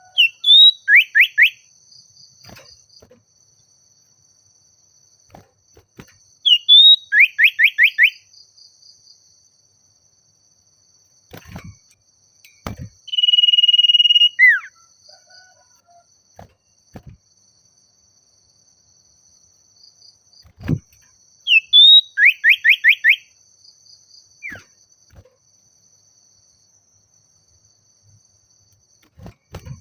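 Common iora (sirtu/cipoh) calling: three loud phrases, each a short high note followed by a quick run of four or five falling whistled notes, and halfway through one long steady whistle that ends in a downward slur. A faint steady high-pitched hum sits under the calls throughout.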